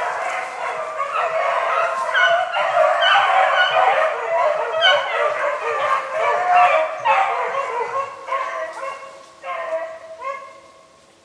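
A pack of beagles baying together in full cry as they run a rabbit's trail. Many voices overlap, and the chorus fades away over the last few seconds as the pack moves off.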